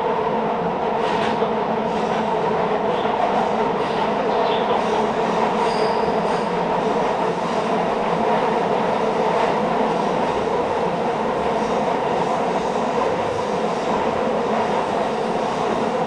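Electric commuter train running on a sharp curve, heard from inside the car: a steady rumble of wheels on rail with the wheels squealing against the curved track.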